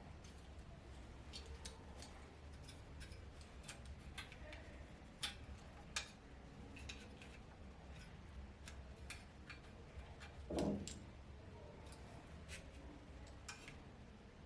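Scattered light clicks and taps at an uneven pace, with one short dull thump about ten and a half seconds in, over a faint low hum.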